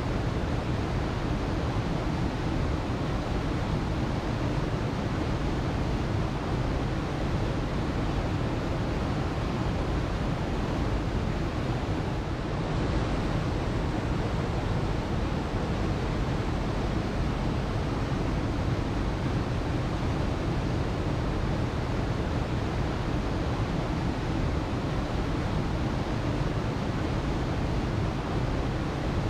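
Waterfall: falling water as a steady, even rush, heaviest in the low and middle range.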